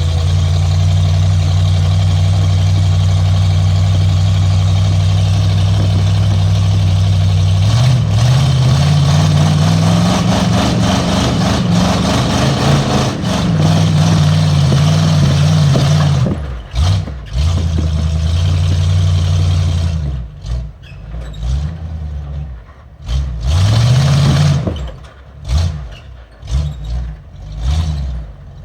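Off-road vehicle engine pulling at low revs, rising in pitch about a third of the way in and easing back, then a run of short throttle bursts over the last part.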